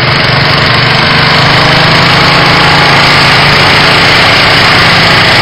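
Sears garden tractor engine running loud and steady under load, pulling a weight sled down the track.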